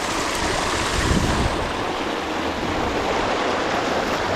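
Creek water rushing steadily over a small dam and rocks, with a brief low rumble about a second in.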